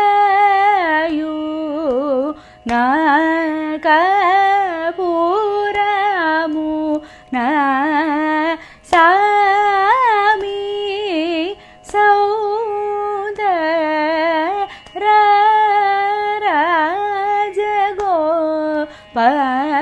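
A woman singing the lyrics of a Carnatic varnam in raga Panthuvarali, in long phrases of wavering, gliding notes with the notes joined together, broken by short pauses for breath.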